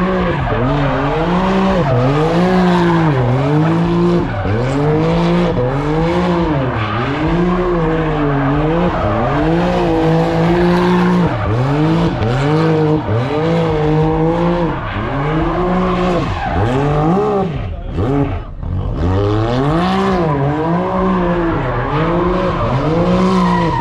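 A car doing donuts: its engine revs up and down about once a second over the hiss and squeal of spinning tyres, with a brief drop in the revs about three quarters of the way through.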